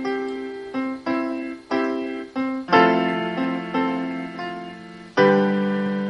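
Solo piano playing a slow, gentle melody of single struck notes that ring and fade. A fuller, louder chord comes about three seconds in, and another near the end rings on.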